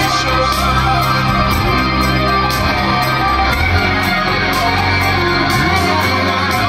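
A rock band playing live, with electric guitar to the fore.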